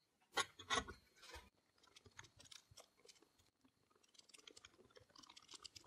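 Steel crank handle knocking onto the lead-screw end of a 6-inch milling-machine vise, a few light metal knocks within the first second, then faint scattered clicks and scraping as the screw is cranked and the moving jaw slides.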